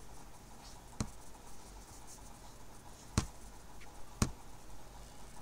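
Three computer mouse clicks: one about a second in, then two louder ones near the end, about a second apart, over faint room hiss.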